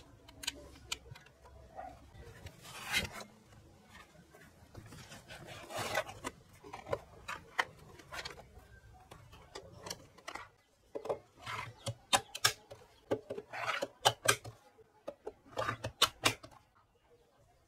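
Handling noise of hard plastic battery packs: rubbing and scraping as they are lifted out of a foam-lined cardboard box, then a quick run of sharp clicks and knocks as a pack is fitted into a battery slot on the speaker cabinet.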